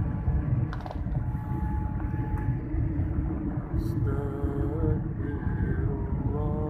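Steady low rumble of a jet airliner's cabin during the descent to land, engine and airflow noise heard from a window seat. From about four seconds in, a faint voice, hummed or sung, rises over it.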